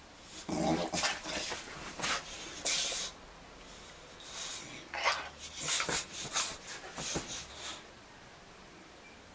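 A Boxer dog's short vocal noises mixed with bedding rustling as it rolls and rubs itself on a bedspread. They come in irregular bursts, with a quieter pause about three seconds in.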